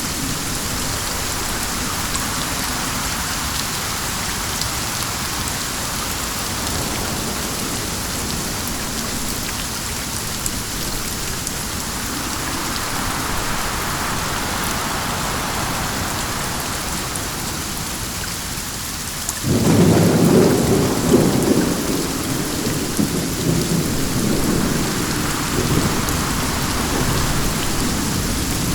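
Steady rain falling, swelling and easing a little. About two-thirds of the way through, a sudden deep roll of thunder breaks in and rumbles on for several seconds, slowly dying away.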